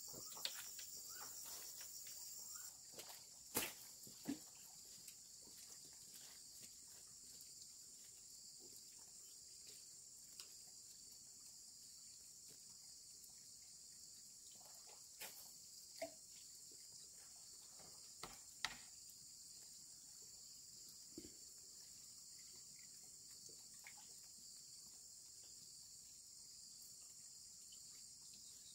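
A faint, steady, high-pitched chorus of insects trilling, with a few sharp clicks and knocks scattered through it.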